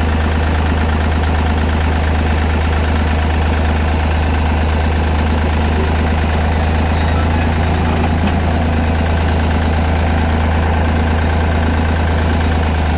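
Deutz D4506 tractor's air-cooled four-cylinder diesel engine idling steadily at a low idle.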